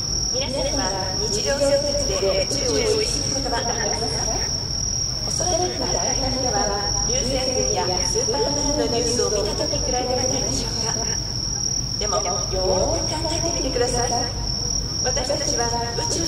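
Night insects chirring in one unbroken, steady high-pitched drone, over the chatter of many people talking nearby and a low rumble.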